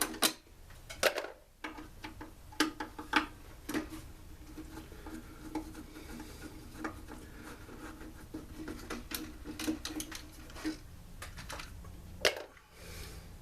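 Scattered clicks, knocks and clinks of hand tools and parts of a backpack leaf blower being handled on a workbench, over a faint steady hum.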